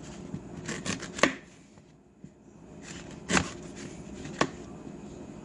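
Knife slicing a zucchini on a cutting board: a handful of irregular knocks as the blade hits the board, the loudest about a second and about three seconds in.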